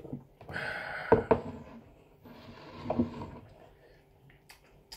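Beer poured from a can into a glass: a fizzing, splashing pour in two stretches of about a second and a half each, with two light knocks about a second in.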